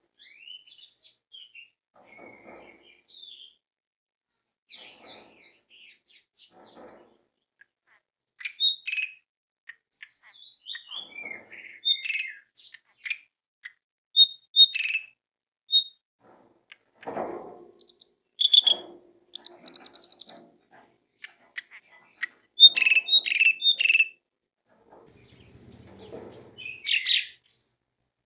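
Asian pied starling (jalak suren) singing a varied string of short whistles, chirps and harsh chattering notes, fairly soft at first and louder from about eight seconds in.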